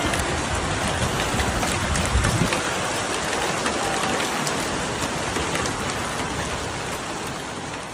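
Hailstorm: a dense steady hiss of falling hail and rain, with many sharp ticks of stones striking surfaces. It fades slowly near the end.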